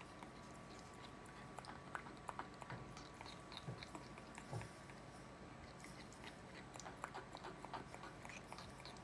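A parrot eating, with small, irregular beak clicks and crunches, faint over a steady background hum.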